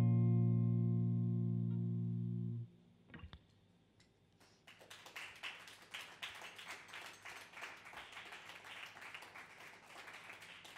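The song's final chord rings out and is cut off abruptly after about two and a half seconds. After a short pause, clapping from the audience starts up and keeps going.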